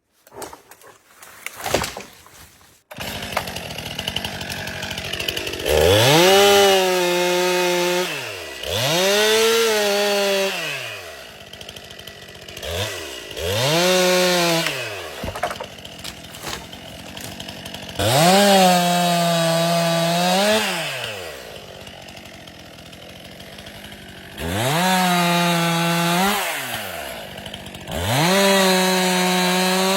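Stihl two-stroke chainsaw running, from about three seconds in, at idle between about six bursts of full throttle of two to three seconds each, the engine note rising high, holding, then falling back to idle.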